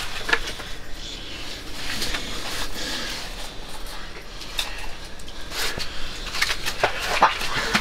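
Scattered clicks and knocks over a low rustle, growing busier about two-thirds of the way in.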